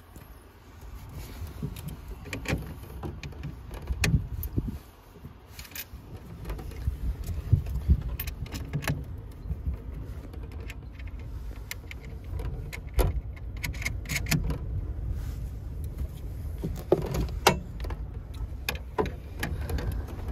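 Irregular metallic clinks, clicks and knocks of hand tools and bolt hardware as the main positive cable is fastened to the battery bank's terminal, over a low steady rumble.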